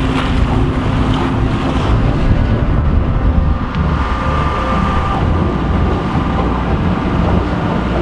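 Wind buffeting the microphone over the rush of water along the hull of a sailboat under way.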